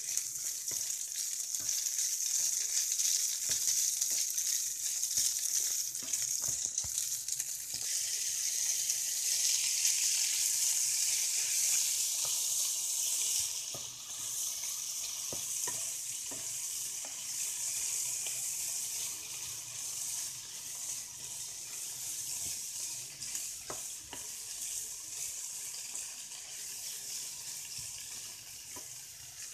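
Diced chicken and vegetables sizzling in oil in a nonstick frying pan, stirred with a wooden spatula that scrapes and taps against the pan now and then. The sizzle is loudest in the first half and drops somewhat about halfway through.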